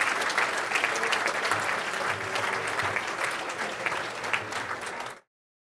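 A large audience applauding, a dense crowd of claps that cuts off suddenly about five seconds in.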